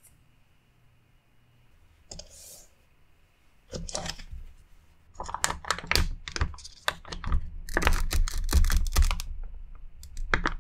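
Sugar hissing briefly as it slides off a measuring spoon into a glass bowl. Then a long run of crinkly crackles and ticks as the foil seal, sticky with chili paste, is peeled back from a plastic gochujang tub.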